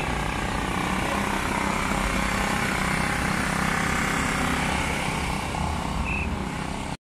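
A steady, loud mechanical drone with a low hum. It cuts off suddenly near the end.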